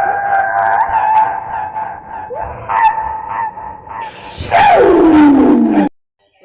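A cartoon character's long, drawn-out sneeze: a held, pitched 'ahh' wind-up, then a loud 'choo' sliding down in pitch near the end, cut off abruptly.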